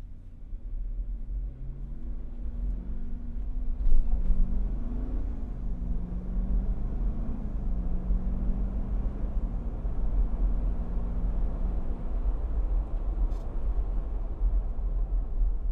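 Jeep Wrangler Rubicon 392's 6.4-litre HEMI V8 running at low revs through its exhaust, a deep steady sound whose pitch drifts gently up and down and grows louder over the first few seconds. A sharp click about four seconds in.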